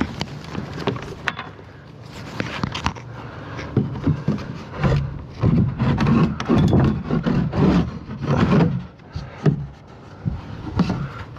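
Plywood bed deck being shifted by hand over its wooden frame: irregular scrapes and knocks of wood on wood, louder and more frequent around the middle of the stretch.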